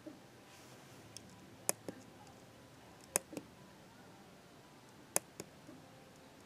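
Small tactile push buttons on a circuit board clicking as a finger presses and releases them: three sharp double clicks about one and a half to two seconds apart, with a few fainter ticks.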